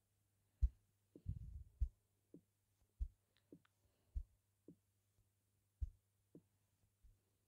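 Faint, soft low thumps at uneven spacing, about ten of them, with a short rumbling cluster a little over a second in, as the smartphone's screen is tapped. A steady low hum runs underneath.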